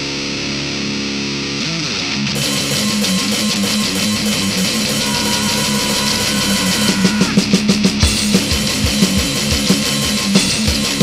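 Rock song with electric guitar: a held guitar chord rings for about two seconds, then the full band comes in with bass and drums, the drumming getting busier past the middle.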